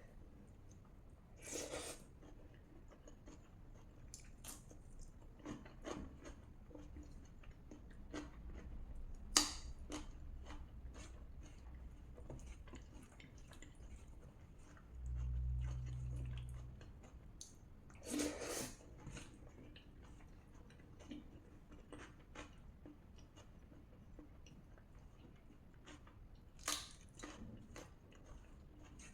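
Close-miked eating: a person chewing mouthfuls of rajma (kidney bean curry) and rice, with soft wet mouth sounds and many small clicks. Four louder smacks come about two seconds in, about a third of the way through, a little past halfway and near the end. A brief low hum sounds just past the middle.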